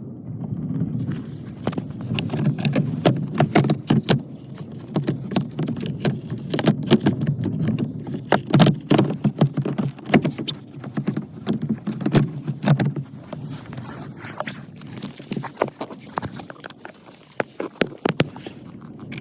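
Irregular clicks, knocks and rustling of hands and tools working plastic parts under a car's dashboard while the heater blower motor is being taken out, with a low rumble of handling noise throughout.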